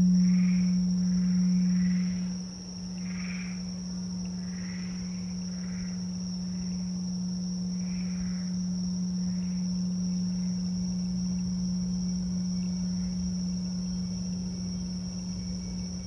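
A crystal singing bowl rings one sustained low tone, loud at first and settling to a softer steady hum after about two seconds. Over it run a steady high drone of insects and a series of short frog calls that thin out about halfway through.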